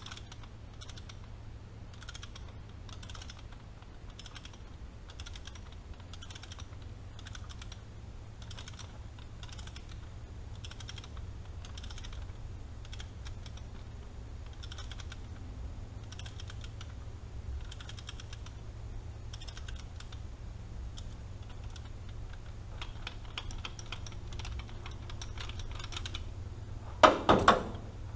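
Ratchet clicking in a steady rhythm, a burst of clicks a little more than once a second, as it backs off an injector hold-down nut on a first-gen 12-valve Cummins. A loud clank near the end.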